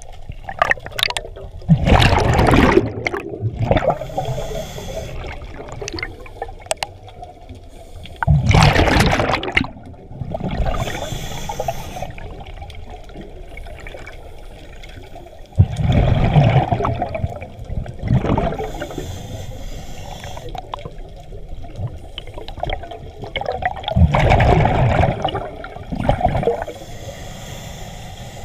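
Underwater breathing through a scuba regulator: four bursts of exhaled bubbles rush and gurgle past, about every seven or eight seconds, each lasting about a second and a half, with a softer hiss of the in-breaths between them.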